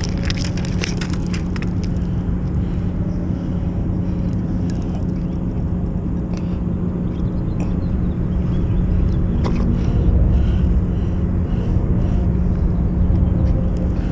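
A large engine drones steadily at a low pitch, growing slightly louder after about eight seconds. A quick run of clicks and rustling sounds in the first two seconds.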